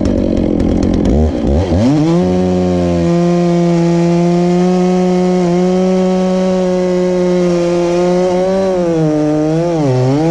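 Petrol chainsaw opened up to full throttle about two seconds in and cutting through a sycamore log. The engine note holds steady and high, then dips and wavers near the end as the chain takes more load in the cut.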